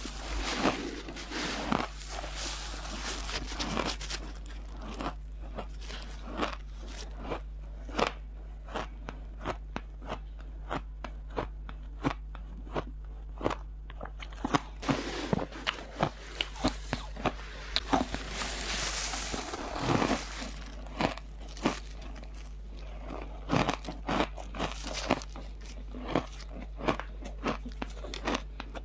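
Close-miked biting and chewing of dry, frosty freezer ice: a run of sharp crunches and cracks at irregular intervals, with longer grinding chews in between, over a steady low hum.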